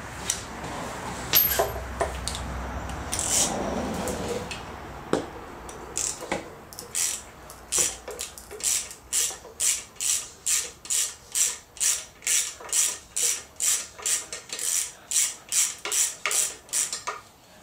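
Hand ratchet clicking in a steady run of short strokes, about two a second, while working a fastener on a Mercruiser Alpha One outdrive housing; the first few seconds hold scattered clicks and handling of tools and parts.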